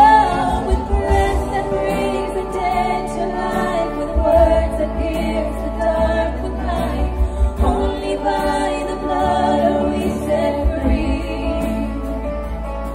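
Contemporary worship song: several women singing together into microphones, backed by a band on keyboard, guitars and drums.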